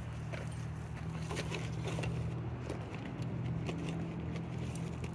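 A steady low hum runs throughout, with a few faint clicks and knocks of handling over it.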